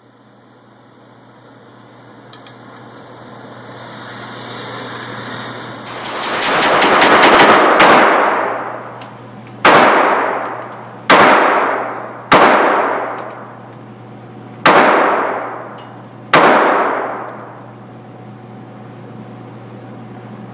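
Ruger SR22 .22 LR semi-automatic pistol firing: a quick string of shots about six seconds in, then five single shots a second or two apart, each dying away slowly. A steady low electrical hum runs underneath.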